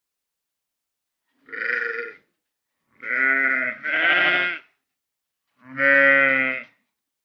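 Sheep bleating: four calls of under a second each, the middle two back to back, with silence between them.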